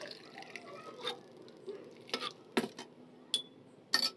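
Steel pot and tea strainer clinking against a glass as green tea is strained into it: about five light clicks and knocks over a faint background, the loudest near the end and one ringing briefly.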